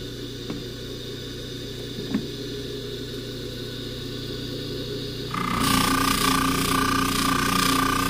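Jeweler's variable-speed buffing motor running steadily. About five seconds in it grows louder, with a higher whine and a rushing hiss.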